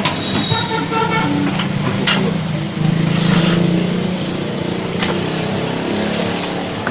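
A motor vehicle engine running, with a short steady tone about half a second in.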